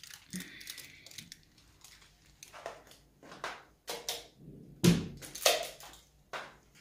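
Aluminium foil crinkling around a sausage held in the hand, in short irregular rustles with scattered knocks and a single louder thump about five seconds in.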